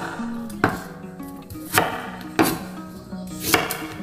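Kitchen knife chopping an onion on a wooden cutting board: five separate chops, spaced out, over background guitar music.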